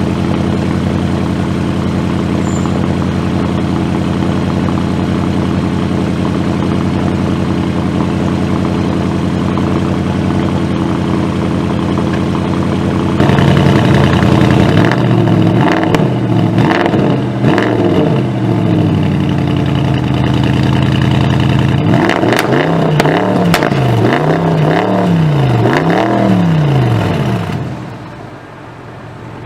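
Bentley Continental GT V8 S's twin-turbo V8 through its optional sports exhaust, idling steadily, then revved repeatedly: a few slower revs about halfway through, then four or five quick blips in a row, with crackles and pops as the revs fall. Near the end it settles back to a quieter idle.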